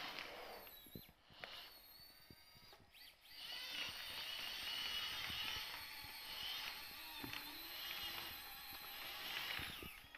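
Small electric drive motors and servos of an RC scale wheel loader whining, their pitch wavering as the machine drives and raises its loaded bucket. A short rustle of granules comes as the bucket digs in at the start.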